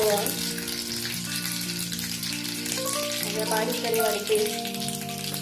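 Hot oil sizzling and crackling in a kadhai as mustard and cumin seeds are sprinkled in for tempering, with background music playing.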